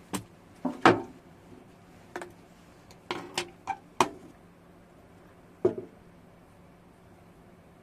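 A run of sharp knocks and clacks from hard objects being handled and set down on a hard surface, the loudest about a second in. A faint steady hum sits underneath.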